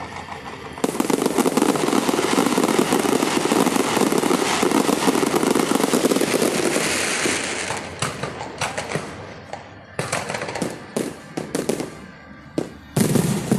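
Fireworks going off. About a second in, a dense, unbroken barrage of crackling starts and runs for about six seconds. It then breaks up into separate sharp bangs of shells bursting, the loudest near the end.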